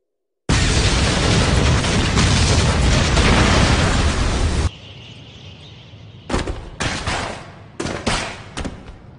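Anime explosion sound effect: a sudden loud blast about half a second in that runs on as a dense rumble for about four seconds and cuts off. It then drops to a fainter crackle with several sharp bursts near the end.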